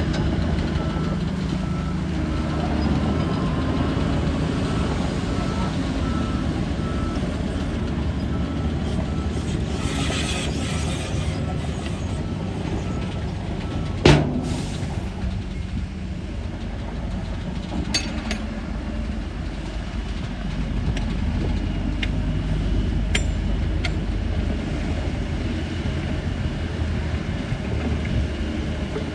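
Shantui DH17 bulldozer's diesel engine running steadily, with one sharp knock about halfway through and a few lighter clicks later.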